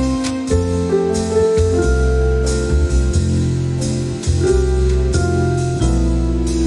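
Background music: a melody of held notes over a bass line, with a steady beat.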